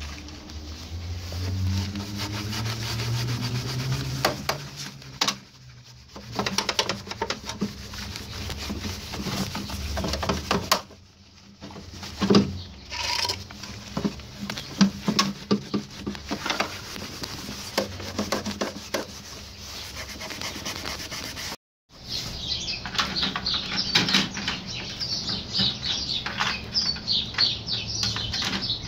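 Wet sponge scrubbing and wiping a metal-edged label panel, with rubbing, squeaking and splashing strokes, over a low hum that rises in pitch during the first few seconds. After a sudden break about twenty seconds in, rapid high-pitched chirps take over.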